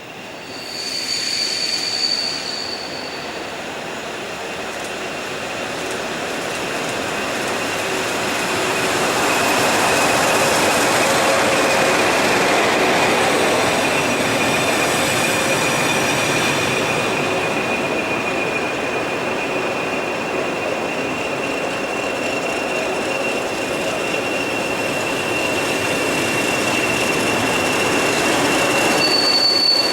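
A non-stopping train running through the station on platform 2, its wheels squealing on the rails in a steady high whine over the rush of the passing train. The noise builds over the first ten seconds or so and then holds.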